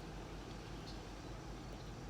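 Steady low background rumble, with a faint short high chirp about a second in.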